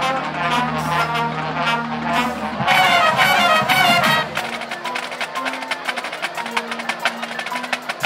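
High school marching band playing, with brass over sustained low notes at first. From about halfway the snare drumline takes over with rapid, closely spaced strokes under quieter held tones.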